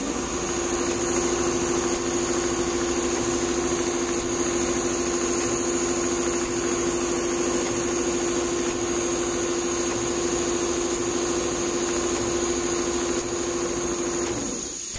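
Richpeace computerized pattern sewing machine stitching a quilted design into a leather upholstery panel at full speed: a steady, fast-pulsing mechanical hum from the needle drive, which stops near the end.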